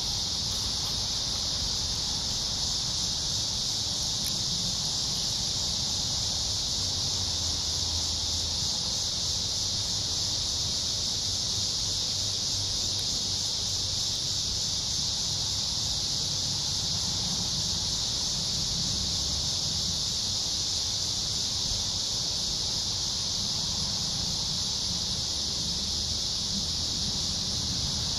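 Steady insect chorus: a continuous high-pitched drone that holds an even level throughout, with a faint low rumble underneath.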